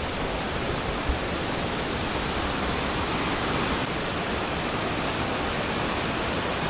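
Steady, unchanging rush of fast-flowing water.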